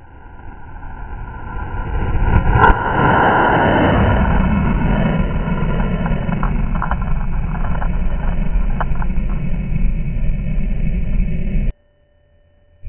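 Rocket motor exhaust, slowed to one-fifth speed so it comes out as a deep, drawn-out rumble. It swells over the first couple of seconds, gives one sharp crack, then holds steady with scattered ticks before cutting off abruptly near the end.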